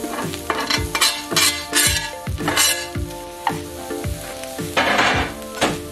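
Chopped onions and hot pepper sizzling in a frying pan, with several sharp scraping strokes as minced ginger and garlic are scraped off a cutting board into the pan and stirred in. Background music with a steady beat plays under it.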